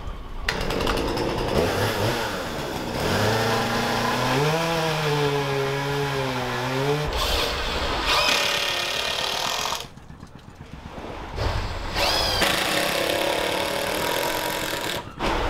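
A small motor-driven tool running in spells, noisy and mechanical. From about three to seven seconds in it holds a droning pitch that wavers up and down, with two short whines later on and a brief lull near ten seconds.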